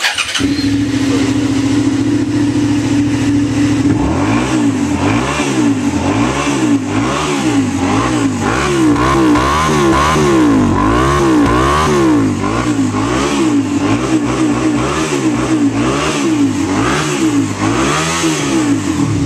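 Suzuki Gladius 650 V-twin engine through an upgraded aftermarket exhaust, warmed up and in neutral. It idles steadily for about four seconds, then is revved with repeated throttle blips, about one a second, each rising and falling in pitch. It settles back to idle near the end.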